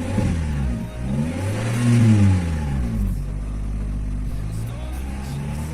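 Chevrolet Vectra engine revved twice, the pitch rising and falling, the second rev longer and louder, then settling back to a steady idle about three seconds in. Its light knocking noise is, by the owner's account, already much reduced after treatment with a metal-conditioner additive.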